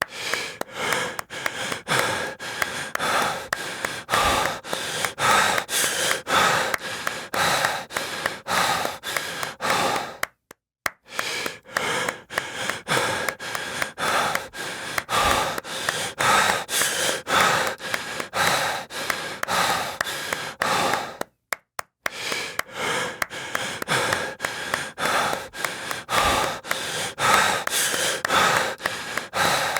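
Heavy breathing mixed with quick, rhythmic claps, about three a second. The run breaks off briefly for a split second about every eleven seconds.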